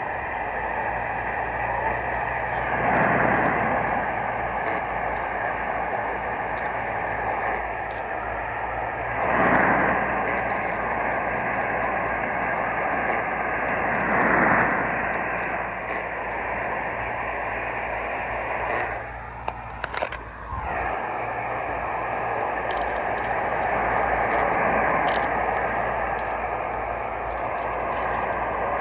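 Car engine running, heard from inside the cabin as a steady rushing noise with a low hum. It swells briefly three times, then dips for a moment with a few clicks about two-thirds of the way through.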